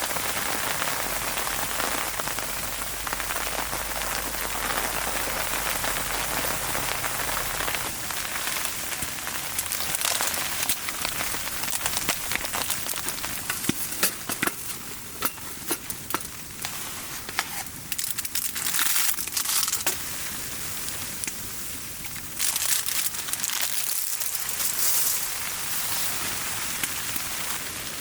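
Precipitation pattering steadily, with irregular sharp crackles and ticks from about 10 to 26 seconds in.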